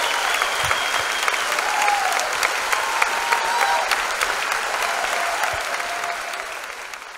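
Audience and choir applauding, a dense steady clapping that fades out near the end.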